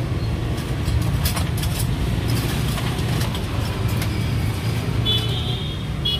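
Steady low rumble of road traffic, with light clicks and clinks of ice being scooped into plastic cups and a short high-pitched tone about five seconds in.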